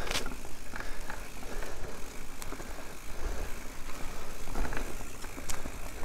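Mountain bike riding over a forest dirt trail: a steady rolling noise of tyres on soil, with scattered small knocks and rattles from the bike and a low rumble of wind on the microphone.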